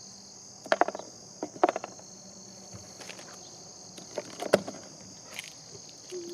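Steady, high-pitched chorus of insects buzzing outdoors. Over it come a few short clusters of sharp clicks and knocks: about a second in, again just before two seconds, and the loudest around four and a half seconds.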